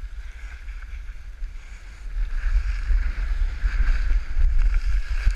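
Wind buffeting a head-mounted camera's microphone during a fast straight run downhill on skis, with the hiss of the skis sliding over the snow. It grows louder about two seconds in as speed builds.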